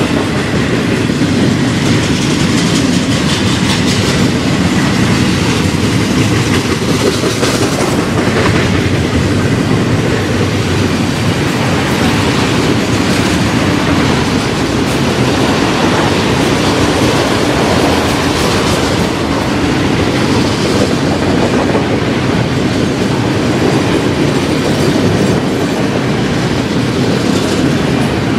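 Long freight train rolling steadily past: double-stack intermodal container cars, then enclosed autorack cars, their wheels clicking over the rail joints.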